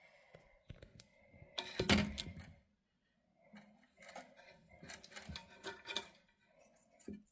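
Irregular clicks, knocks and clatter of hard parts being handled, with the loudest burst about two seconds in.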